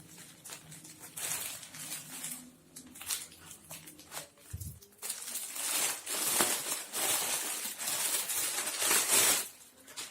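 A parcel's packaging being torn open and handled: rustling and crinkling with small clicks, turning into a denser, louder rustle about halfway through that stops shortly before the end.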